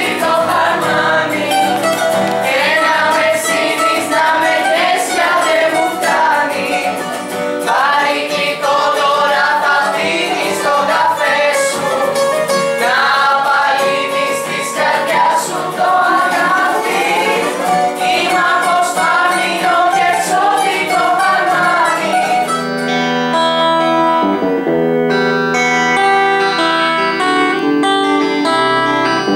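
A group of teenagers singing a song together, accompanied by a strummed acoustic guitar and a bouzouki. About 22 seconds in, the singing stops and a solo electric guitar plays a melody of single notes.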